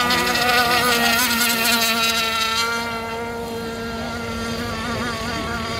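Several 1/6-scale gas RC race boats running flat out, their small two-stroke engines making a high-pitched buzz at overlapping, wavering pitches. The nearest boat gets quieter about three seconds in.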